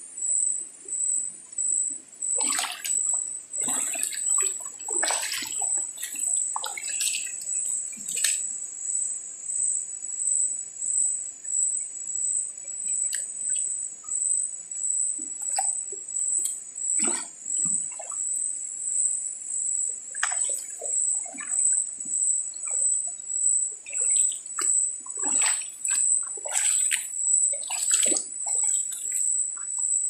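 A chorus of cicadas and crickets gives a steady, rapidly pulsing high buzz throughout. Over it, water in a shallow rocky stream splashes and trickles in irregular bursts, mostly in the first several seconds and again near the end.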